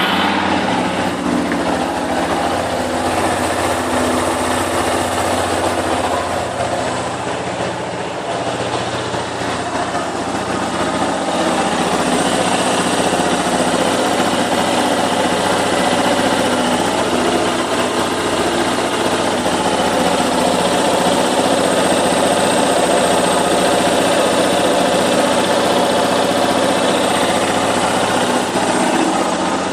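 Yamaha Fazer YS250 single-cylinder engine idling steadily just after being started, a little louder from about ten seconds in. The cam chain tensioner has just been replaced to cure a top-end engine noise.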